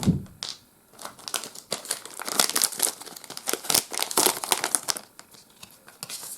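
Plastic booster-pack wrapper crinkling as it is handled and torn open, a dense run of crackles that is busiest through the middle and dies down near the end.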